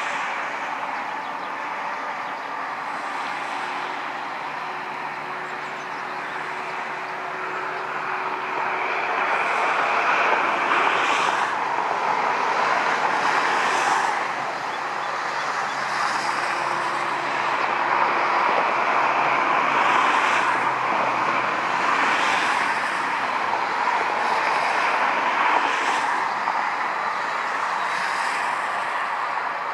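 Boeing 747's four jet engines running at low power as the jet taxis closer, a steady rushing whine that grows louder about ten seconds in.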